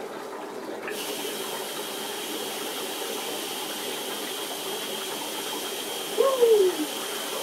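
Dry ice bubbling and fizzing in hot water in a sink, a steady watery hiss that grows fuller about a second in. About six seconds in, a child's voice gives one short falling 'whooo'.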